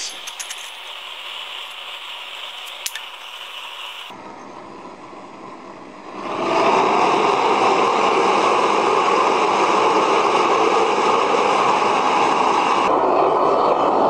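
Propane torch burner firing into a home-made furnace: a steady hiss of gas flame, which about six seconds in jumps to a much louder, steady rushing of the flame as the gas is turned up.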